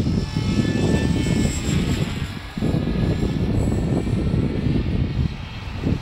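Wind buffeting the microphone in gusts, the loudest sound, with the thin high whine of an electric CopterX 450 RC helicopter's brushless motor and rotors overhead, its pitch wavering a little.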